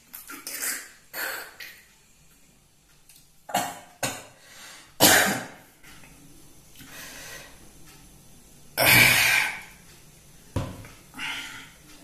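A man coughing and clearing his throat in a series of short bursts after sipping strong homemade beetroot wine; the loudest bursts come about five and nine seconds in.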